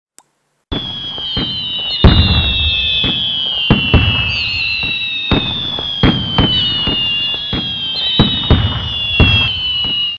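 Fireworks: several overlapping whistles falling slowly in pitch, over a string of sharp bangs and crackle. They start abruptly just under a second in and cut off suddenly near the end.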